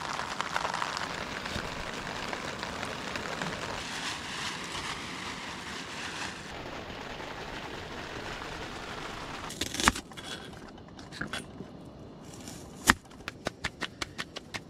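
Steady rain falling, an even hiss, for the first ten seconds or so. Then it turns quieter, with a sharp knock about ten seconds in, another near thirteen seconds, and a quick run of sharp taps near the end.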